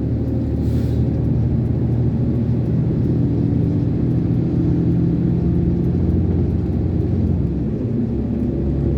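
Diesel engine of an Iveco concrete mixer lorry running under way, heard from inside the cab, with steady road rumble; the engine note shifts a little about eight seconds in.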